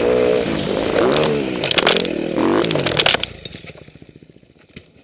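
Husqvarna TE 250 dirt bike crashing: the engine revs unevenly while loud impacts and scraping of bike and rider on rock come about one, two and three seconds in. Just after three seconds the engine sound drops away suddenly as the bike goes over the cliff edge, leaving only faint ticks of falling stones.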